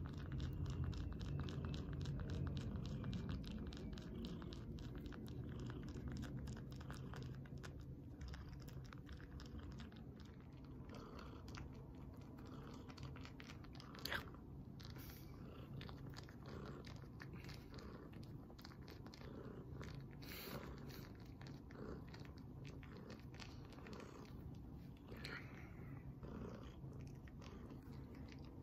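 Tabby cat purring steadily, a low rumble with rapid pulsing, with one short sharp sound about halfway through.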